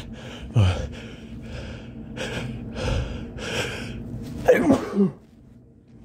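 A man's sneeze building up: a gasp, then a run of quick breathy, gasping in-breaths, and about four and a half seconds in a single loud sneeze with the voice falling in pitch.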